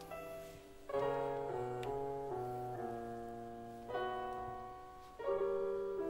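Slow piano music: chords and single notes struck about a second apart, each left to ring and fade, with fuller chords about a second in, at four seconds and just after five.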